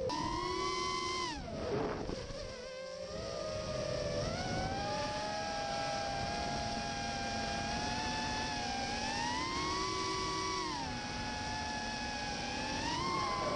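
FPV quadcopter's electric motors and propellers whining in flight. The pitch dips sharply about two seconds in, then climbs and falls again several times as the motors speed up and slow down, rising once more near the end.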